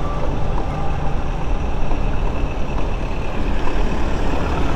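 Motorcycle running on the road, a steady low rumble of engine and wind buffeting the microphone.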